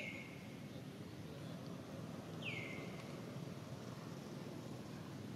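A bird's short whistled call, twice about two and a half seconds apart: each drops sharply in pitch and then holds briefly on a steady note. A low steady background noise runs under it.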